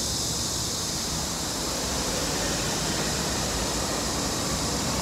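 Steady roadside traffic noise: a low rumble of passing vehicles under a constant hiss.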